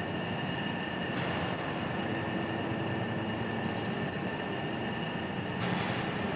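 Overhead travelling cranes running while they turn a ship hull section: a steady mechanical hum with high whining tones. Two short hisses come about a second in and near the end.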